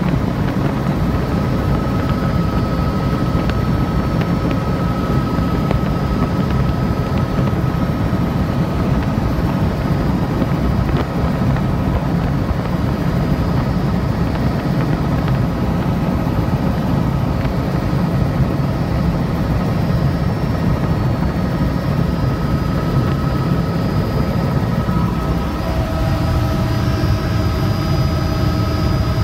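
Helicopter in flight heard from inside the cabin: a loud, steady rumble of rotor and engine with a few constant whining tones above it. More tones join about four seconds before the end.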